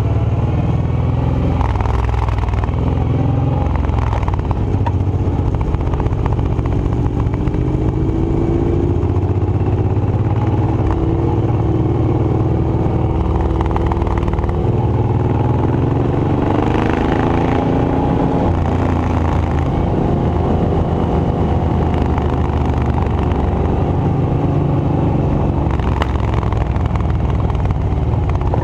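A sawmill's engine running loud and continuously, its pitch rising and falling as it works, with a few knocks along the way.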